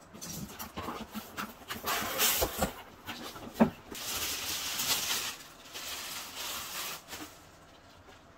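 Packaging being handled by hand while a humidifier is unboxed: cardboard and a packing sheet rustle and crinkle, with scattered small knocks and one sharper knock about three and a half seconds in. The crinkling is densest for about a second just after the midpoint, as the sheet is pulled off.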